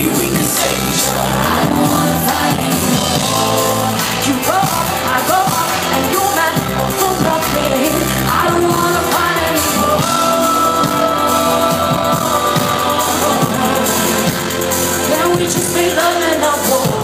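A pop song played live by a band with drums and keyboards, and a woman singing long held lines into a microphone, heard from within the audience.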